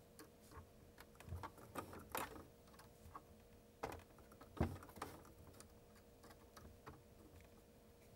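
Faint, scattered clicks and taps of a thin hand tool working on the metal set screws and gear of a sewing machine's lower-shaft hook drive, metal on metal. The clicks come irregularly through the first few seconds, then stop.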